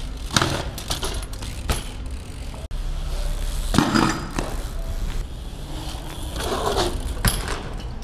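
BMX bikes ridden over a brick planter ledge and pavement: several sharp knocks as wheels strike and land on the ledge, over a low rumble of tyres and wind on the microphone.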